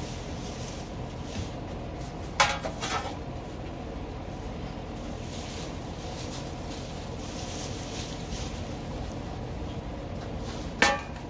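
A bare metal grill drip pan is handled on a stone tabletop: a short clatter of metal knocks about two seconds in as it is picked up, and a single sharp clank near the end as it is set back down. A steady low background noise runs underneath.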